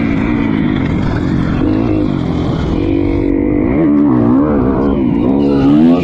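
Dirt bike engine revving up and down under riding, its pitch rising and falling every second or so.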